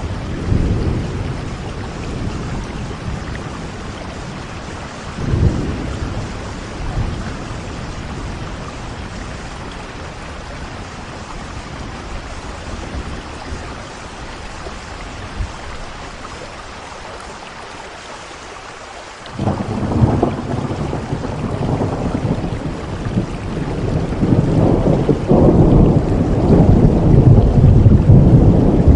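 Heavy rain with thunder: a steady rain hiss, with low rolls of thunder near the start and about five seconds in. About nineteen seconds in, a sudden loud crack of thunder breaks in, and the rumbling grows loudest near the end.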